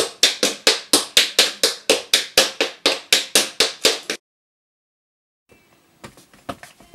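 Metal taps on tap shoes striking a laminate floor in a quick, even run of sharp clicks, about five a second. The run cuts off abruptly about four seconds in, and fainter taps start again near the end.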